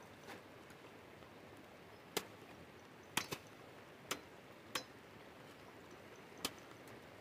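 Wooden poles knocking together as they are handled and set against upright poles. There are about seven sharp, irregular knocks, two of them close together a little past three seconds in, over a faint steady hiss.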